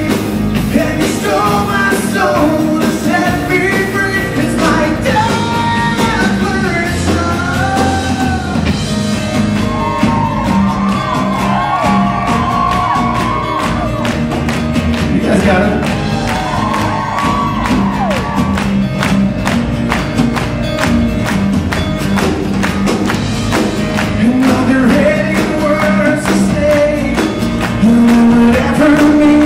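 Live rock band playing, with acoustic guitars, bass guitar and drums under a man's singing voice.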